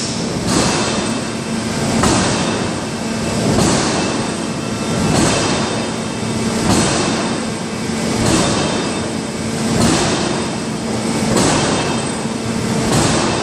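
Large open-die forging press working red-hot steel to shape a roll, pressing in a steady rhythm of about one stroke every second and a half over a steady hum.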